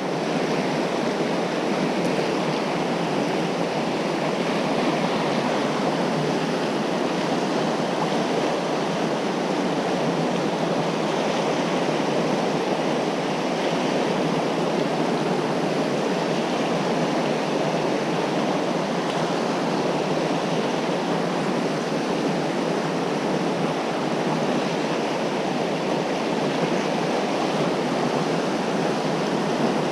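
Fast whitewater riffles of a mountain trout river running high, rushing steadily close by with an even, unbroken hiss and roar.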